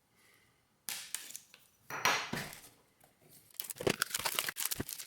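Cardboard packaging of a trading-card box being handled and opened. A sharp knock comes about a second in, then scraping, and near the end a quick run of crinkling and tapping.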